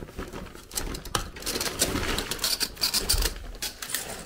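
Rustling and crinkling of a shopping bag and plastic-wrapped groceries being rummaged through and lifted out, with a few sharp knocks of handling.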